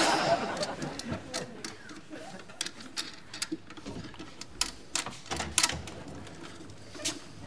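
Scattered light clicks and taps of a screwdriver working on a radio-controlled model car.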